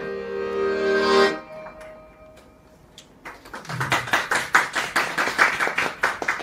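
Dino Baffelli piano accordion holding a final chord with guitar, which stops about a second in. After a short pause, a small audience starts clapping.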